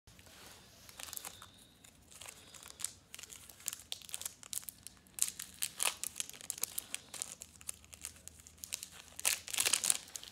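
KitKat bar's wrapper crinkling and tearing as it is unwrapped by hand, in irregular crackles that are loudest near the end.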